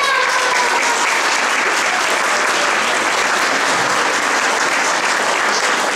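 Audience applauding steadily, starting just as a prize is announced.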